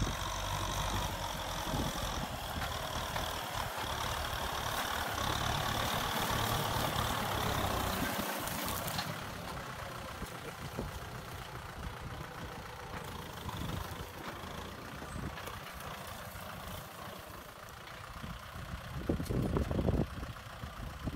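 Kubota M6040SU tractor's diesel engine running steadily as it pulls a disc plow. A hiss over the engine for the first half stops abruptly about nine seconds in, and the sound swells briefly near the end.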